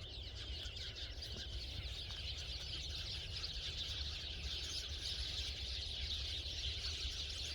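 A large flock of small birds chattering continuously together, many overlapping high chirps, growing a little louder partway through, over a low rumble.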